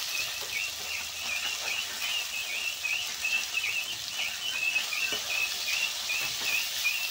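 Half-fried snakehead fish pieces sizzling in hot oil in a wok as a metal spatula breaks them up, with a high, wavering chirp repeated about three times a second throughout.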